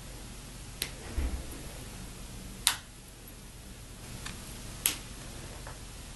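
The sleeve of a dirty FasTest MBE quick-connect connector being worked by hand: four short, sharp clicks spread over several seconds, the one near the middle the loudest, and a soft low thump about a second in. The connector is dirty and needs cleaning, so it lacks a good connector's clean snap.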